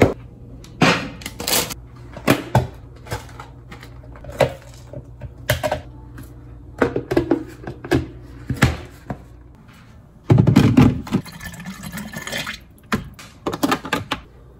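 Kitchen handling sounds: a series of separate knocks and clunks as containers and a food processor's plastic jar and lid are picked up, set down and fitted together. A louder, noisier stretch of about two seconds comes a little after ten seconds in.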